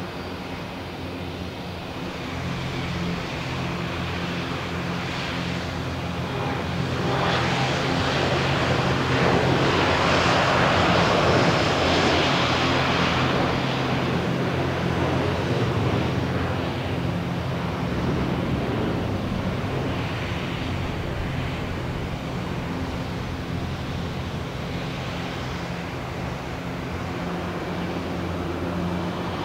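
Jet airliner's engines at takeoff power, the roar building to a peak about a third of the way in and then slowly fading as it passes, over a steady low hum.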